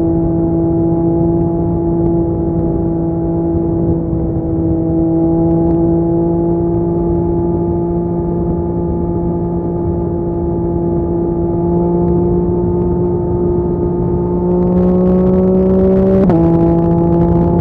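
2023 Yamaha MT-09's three-cylinder engine through a LeoVince LV Race exhaust, pulling steadily under way with its pitch rising slowly. About sixteen seconds in, a quick upshift drops the pitch sharply without a break in the sound, typical of a quickshifter.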